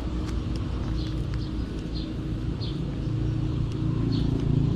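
A motor vehicle engine running with a steady low drone that grows a little louder near the end, with short high bird chirps about once a second over it.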